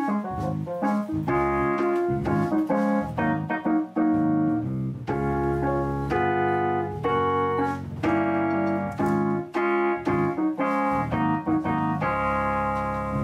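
Electronic keyboard playing a run of chords with a melody on top, the chords changing every half second or so and ending on a longer held chord.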